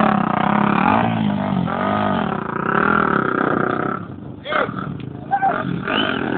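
Off-road vehicle engines running and revving up and down, with a brief drop in level about two-thirds of the way through.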